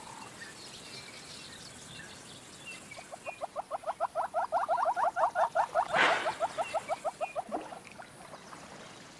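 Southern yellow-billed hornbill calling in its wing-spread display: a long, even run of short clucking notes, about six a second, growing louder and then fading. A single sharp snap comes partway through, and faint chirps of other birds sit behind it.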